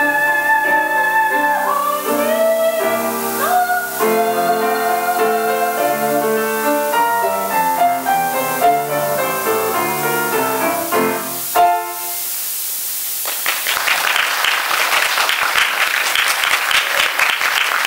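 A female singer's last held notes over grand piano accompaniment, then the grand piano alone playing a quick postlude that ends on a final chord about twelve seconds in. An audience's applause starts about a second later and carries on.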